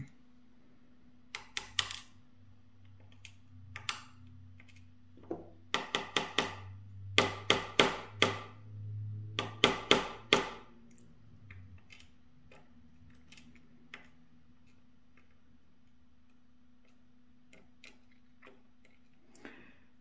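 Tweezers and small lock pins clicking and tapping against metal as pins are drawn out of a dimple lock cylinder and set down, picked up by a contact mic. Quick clusters of sharp clicks come in the first half with a low handling rumble under them, then only a few faint ticks.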